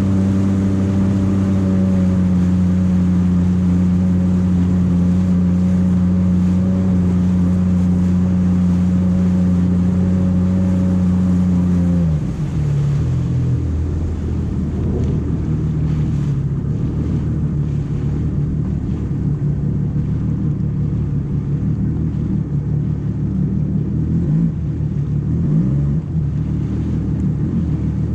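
Jet ski engine running at a steady high speed, then throttling back suddenly about twelve seconds in to a lower, unsteady running with the pitch wavering.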